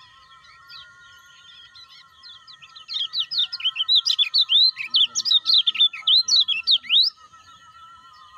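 Kecial kuning (lemon-bellied white-eye) singing: starting about three seconds in, a rapid, loud run of sharp up-and-down chirps lasts about four seconds, over faint steady high tones.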